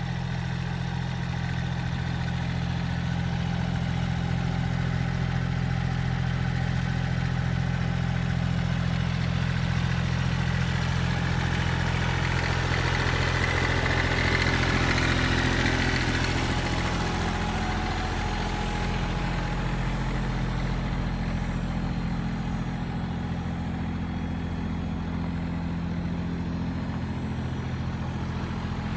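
Kubota BX23 compact tractor's three-cylinder diesel engine running steadily. It gets louder for several seconds around the middle, with a rushing hiss over it, then settles back.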